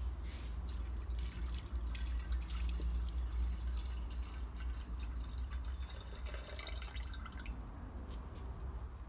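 Water poured from a jug into a steel mixer-box barrel, splashing and trickling inside, stopping about seven and a half seconds in. The barrel is being filled to leak-test its rubber-sealed lid.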